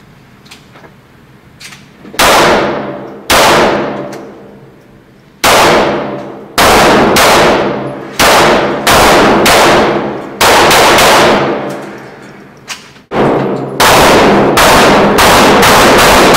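Pistol gunfire at an indoor range: a string of very loud shots with uneven gaps, starting about two seconds in and coming faster near the end, each shot followed by a long echoing decay.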